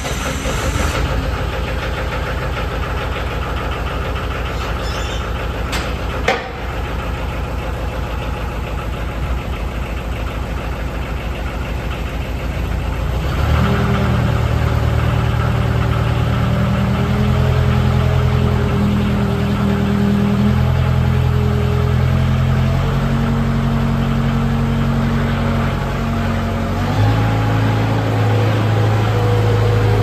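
Bobcat 743B skid steer's engine running: rough and low at first, then brought up to a higher, steadier speed a little under halfway through, with its pitch stepping up and down a few times after that. A single sharp click about six seconds in.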